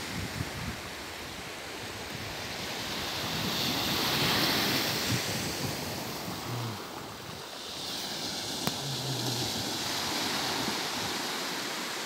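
Small sea waves breaking and washing up on a sand-and-pebble beach. The surf swells about four seconds in and again after about eight seconds.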